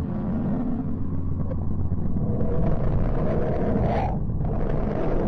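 Low, steady rumbling drone with faint held tones above it, presented as the sound of the planet Mercury: radio emissions turned into audio. It grows brighter and fuller about halfway through.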